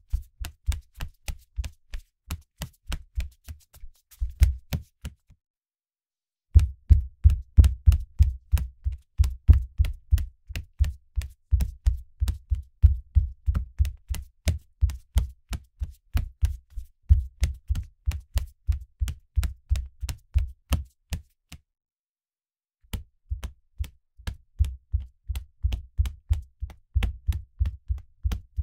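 Bare feet walking fast, quick even footfalls slapping the floor at about three to four steps a second. The steps stop twice, briefly, about five seconds in and again about twenty-one seconds in, then resume.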